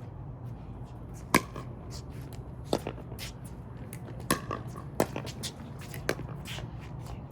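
Pickleball rally: sharp pops of paddles hitting the plastic ball, about one to one and a half seconds apart, with fainter pops from play nearby. A steady low hum runs underneath.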